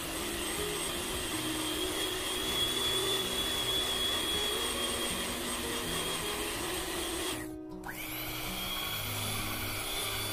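Sayona 300W electric hand mixer running steadily with dough hooks kneading wheat flour dough, a motor whine over a hum, with background music. The sound drops out briefly about three-quarters of the way through and resumes.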